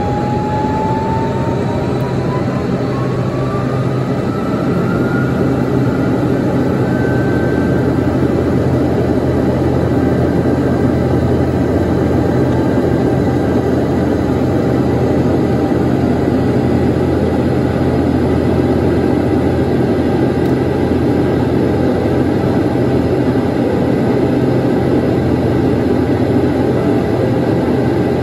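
Turbofan jet engines of a taxiing Boeing C-40C (a military Boeing 737-700) running at taxi power, a loud steady engine noise with a low hum. A whine climbs in pitch over the first several seconds as the engines spool.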